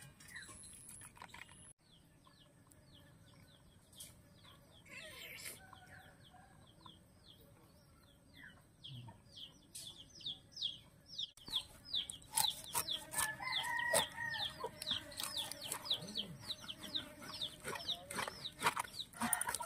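Chickens: rapid, high, falling peeps repeating over and over, growing much busier about halfway through, with lower clucking mixed in.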